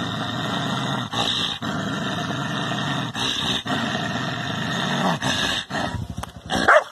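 A dog growling low and steadily at its reflection in a mirror, broken by short pauses for breath every second or two. Just before the end comes one short, loud rising yelp.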